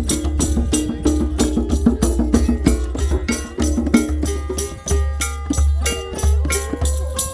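Live oriental-style folk music: fast, dense hand percussion with a tambourine-like clatter over a low drum pulse. From about five seconds in, a melody instrument plays a sliding, wavering line.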